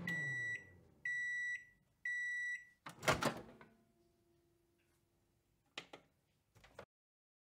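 Microwave oven finishing its cycle: the running hum winds down, then three high beeps about a second apart. About three seconds in the door unlatches and opens with a loud clunk, and a couple of faint clicks follow near the end.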